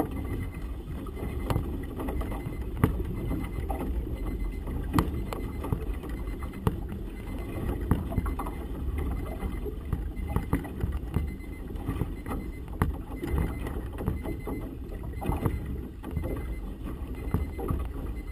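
Wind and water noise on a small boat in choppy water, a steady low rumble with irregular sharp snaps and knocks from a flag flapping hard in gusty wind and waves against the hull.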